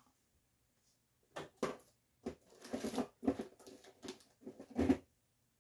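Metal food cans and groceries being handled and set down: a string of irregular knocks, clunks and rustles starting after about a second and a half, with the loudest knock shortly before the end.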